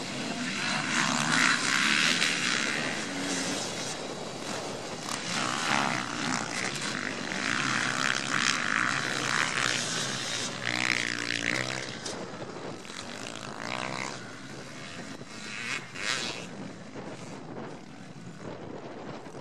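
A pack of motocross bikes accelerating off the start line together, a dense mix of engines loudest in the first few seconds, then fading as the field pulls away around the track. About ten seconds in, one bike's engine note rises and falls as it revs through the gears.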